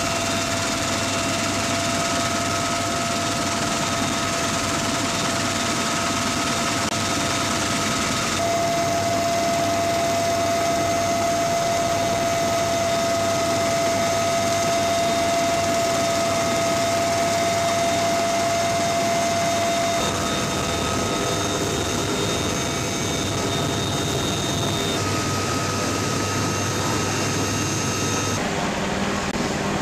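Military helicopter running steadily: a dense rush of engine and rotor noise with a constant high whine on top. The sound shifts abruptly a few times, at about 8, 20, 25 and 28 seconds in, where separate pieces of footage are joined.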